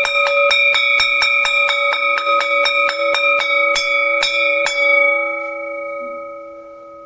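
A metal school bell struck rapidly and repeatedly, about four strokes a second for some five seconds. The striking then stops and the bell rings on, fading away.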